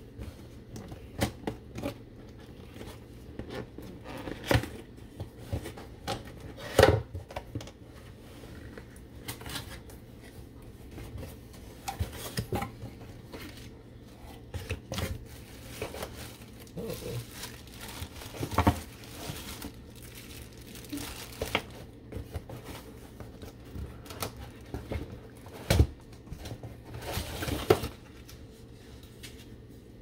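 Cardboard box being opened by hand: irregular tearing, scraping and crinkling of the cardboard flaps and packaging, with sharp knocks and taps along the way. The handling dies down near the end.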